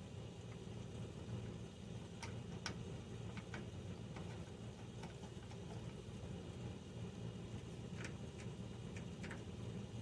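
Faint, irregular clicks and light knocks of plastic tail-light bulb sockets and wiring being handled and fitted into the housing, over a steady low hum.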